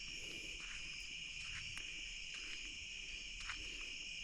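Night chorus of crickets and other insects, a steady high-pitched drone, with a few faint short clicks scattered through it.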